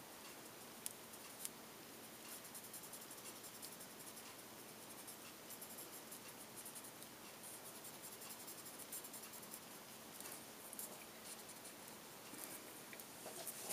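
Faint scratchy rubbing of a paper blending stump, moistened with mineral spirits, worked in small circles over colored pencil on paper. There are a couple of small ticks about a second in.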